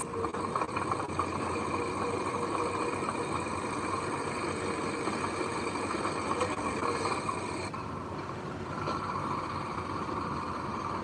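Diesel engine of heavy earthmoving machinery running steadily, with a steady high whine over it that drops away about eight seconds in.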